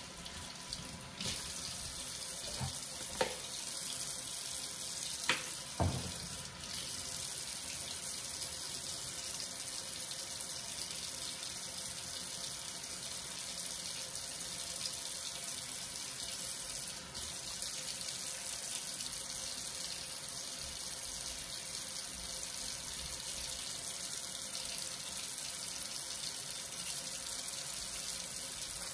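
Sink tap running steadily while hands are washed under the stream, with a few light knocks in the first six seconds.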